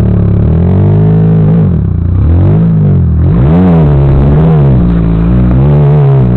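Off-road tube-frame buggy's engine revving up and down hard as it climbs a steep dirt hill, easing off briefly about two seconds in before revving up again.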